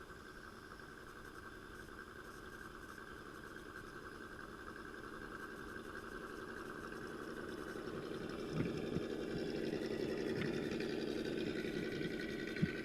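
Traxxas TRX-4 Defender RC crawler's electric motor and gearbox whining steadily, growing louder, with a few short knocks in the second half.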